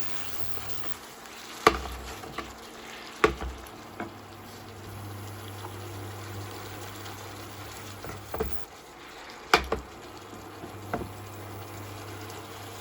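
Food frying in a pan with a steady sizzle, while a utensil stirs it and knocks against the pan about six times, loudest twice.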